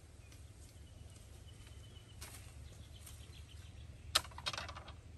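Light clicks and taps from fishing line and tackle being handled in a wooden boat: a sharp click about four seconds in, then a quick run of small clicks, over a faint low background rumble.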